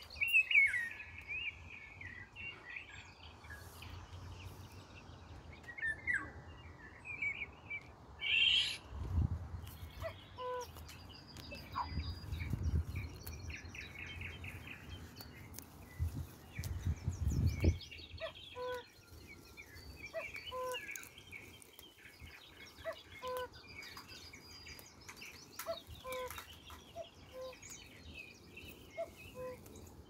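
Garden songbirds chirping and singing, with a short low call repeated about once a second through the second half. Low rumbles of handling noise on the microphone in the middle.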